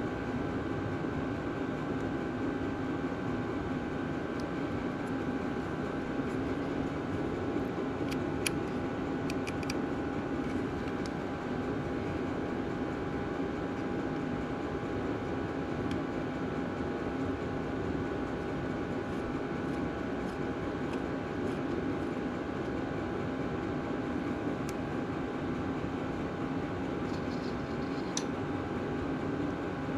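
Steady machine hum with a constant whine held at one pitch, and a few faint light clicks about a third of the way in and again near the end.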